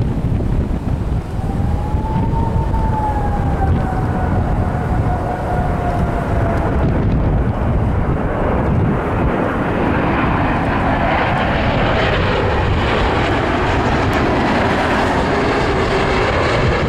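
Boeing 777-200 airliner on final approach, its two turbofan engines growing louder as it comes in low overhead. A thin engine whine rises and then slowly falls in pitch in the first half, and a broad jet rush builds in the second half. Gusty wind rumbles on the microphone throughout.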